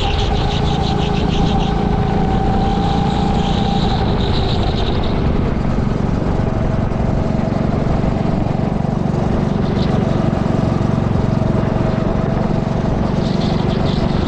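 Go-kart engine running at speed under load, its pitch drifting a little through the lap, with strong wind and chassis noise on the onboard mount. A raspy higher hiss comes and goes near the start and again near the end.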